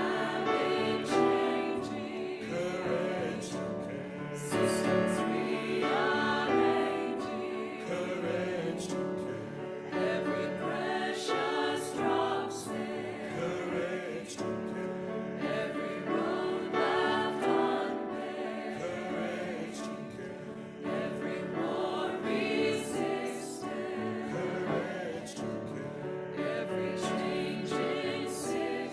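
A choir singing in harmony, several voices holding and moving through sung phrases with vibrato.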